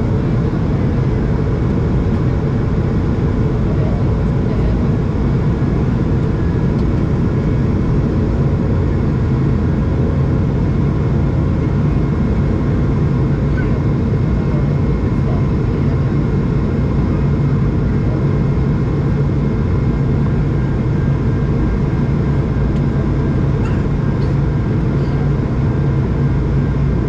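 Steady in-flight cabin noise of an Airbus A220 heard from a window seat over the wing: the deep, even roar of its Pratt & Whitney geared turbofans and rushing air, with faint steady tones running above it.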